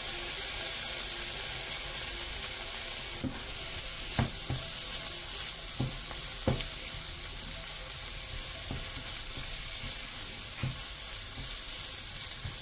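Tomato wedges sizzling in hot oil in a non-stick frying pan, just added to fried onion-and-spice masala. A wooden spatula stirring them knocks against the pan several times.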